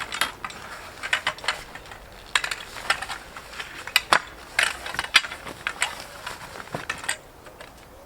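Irregular rustling and sharp clicks of bivvy parts and their bags and packaging being handled and sorted.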